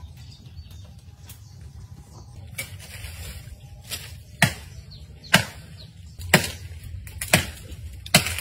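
Sharp chopping strikes of a blade hacking at tree branches, faint at first, then loud and about one a second through the second half.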